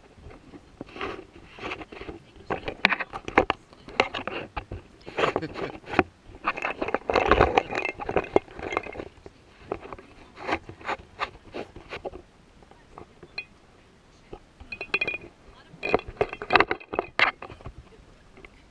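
Indistinct low conversation among a few people, broken by short clicks and knocks from food and plates being handled, with a quieter lull about two-thirds of the way through.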